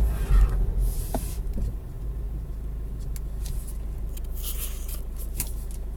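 Car running, heard from inside the cabin: a steady low rumble, louder for the first two seconds, with a few light clicks.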